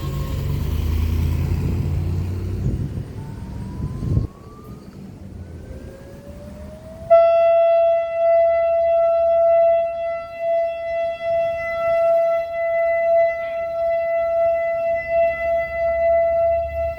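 Outdoor warning siren (civil defense siren) winding up, its pitch rising for a few seconds, then holding one loud steady wail from about seven seconds in, swelling and fading in level about once a second. Before the siren peaks, a low rumble stops with a thump about four seconds in.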